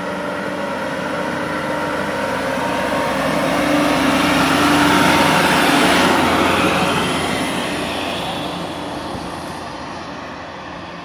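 Tourist road train, a wheeled tractor unit dressed up as a steam locomotive and pulling carriages, driving past. Its engine runs steadily and the rolling noise grows louder as it approaches, is loudest about five to six seconds in, then fades as it moves away.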